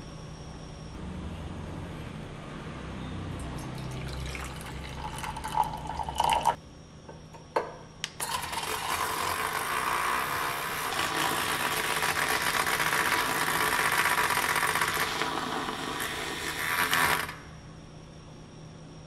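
Handheld battery milk frother whisking milk in a frothing pitcher: a steady motor whine over churning liquid that starts about eight seconds in and cuts off abruptly about nine seconds later. A few sharp knocks come before it.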